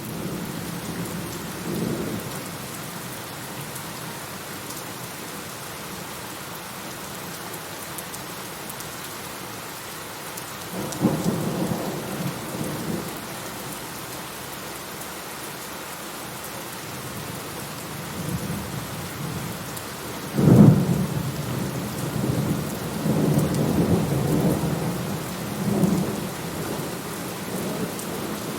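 Steady rain falling, with thunder rumbling over it: a low roll about two seconds in, another around eleven seconds in, and a sudden loud thunderclap about twenty seconds in that rolls on for several seconds.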